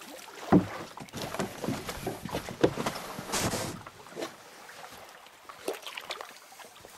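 Canoe landing on a rocky shore, its hull knocking and scraping as the paddler climbs out: a run of knocks and clatter, the loudest thumps about half a second and two and a half seconds in, with a short rustling shuffle about three and a half seconds in.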